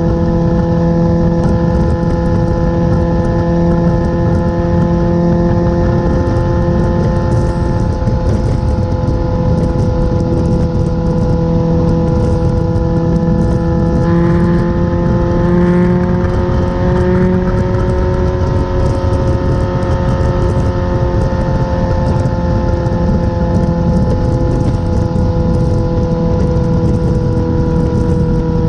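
Motorcycle engine droning steadily at highway cruising speed, with a dense low rumble underneath. The engine's pitch rises a little about halfway through, then eases back down.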